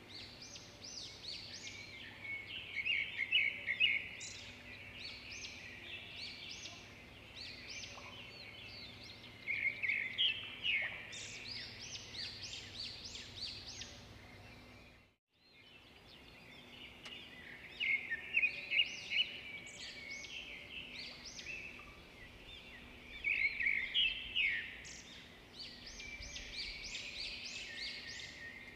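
Small songbirds chirping and trilling in repeated bursts of quick high notes, over a faint steady hum. The sound cuts out completely for a moment about halfway through.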